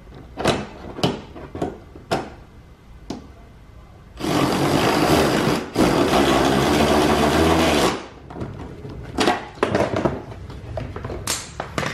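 Makita 18V cordless ratchet running in two spells, about a second and a half then about two seconds with a brief break between, driving a 10 mm bolt tight. Light clicks and knocks before and after as the tool is fitted to the bolt.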